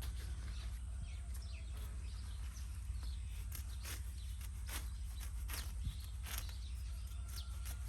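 Grass and weeds being cut by hand in short regular strokes, about one a second from about halfway through, over a steady low rumble.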